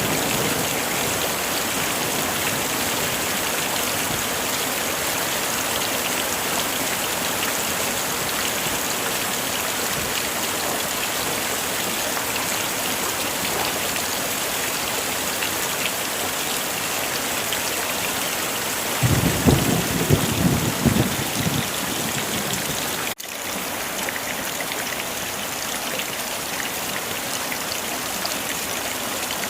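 Heavy rain falling steadily. About nineteen seconds in, a low rumble of thunder lasts a couple of seconds. Just after that the sound cuts out for an instant, then the rain carries on slightly quieter.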